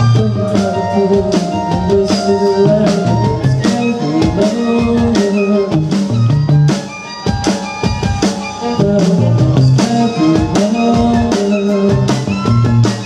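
Live band playing an instrumental passage: bowed violin over a drum kit keeping a steady beat.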